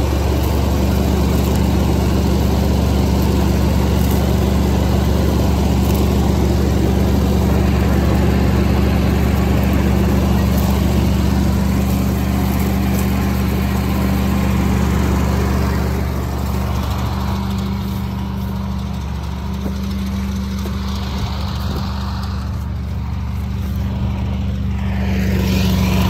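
Rice combine harvester running steadily under load, its engine and threshing gear heard close up from the grain-bagging station. The sound eases a little about two-thirds of the way through.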